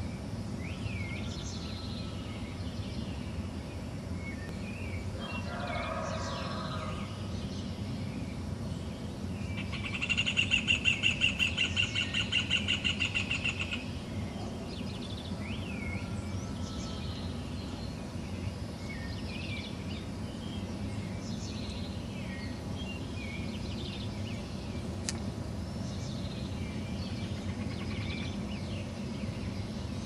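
Dawn chorus: many birds chirping with short rising notes, and about ten seconds in one bird gives a loud rapid trill that lasts some four seconds and fades away. A steady low rumble runs underneath.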